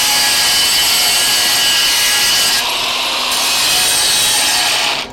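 Electric angle grinder grinding down the hot-pass weld bead on an overhead steel plate before the filling pass: a loud, steady grinding with a brief change in tone about halfway through, stopping abruptly near the end.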